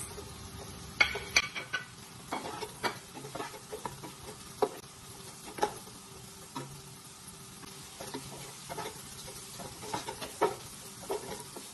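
Wooden spoon stirring sliced carrots and green beans in butter in a nonstick pot, with irregular knocks and scrapes of the spoon against the pot over a soft sizzle.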